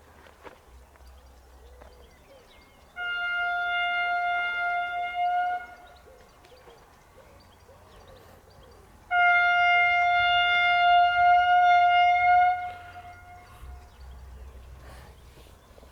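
Steam locomotive whistle of DB class 23 engine 23 042, blown twice: a blast of nearly three seconds about three seconds in, then a louder, longer blast of about three and a half seconds, each a single steady tone.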